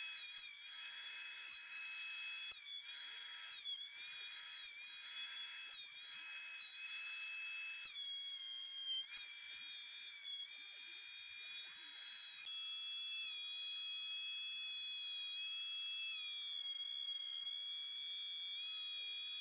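Thickness planer running with a high whine. Its pitch dips briefly again and again as the board feeds through under load, then holds steadier in the later part.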